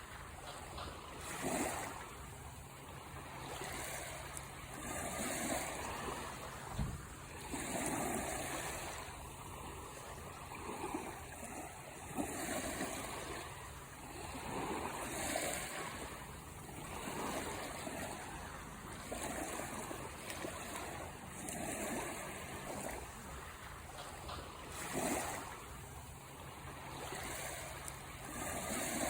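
Ocean waves washing onto a shore, a steady hiss of surf that swells and recedes every couple of seconds.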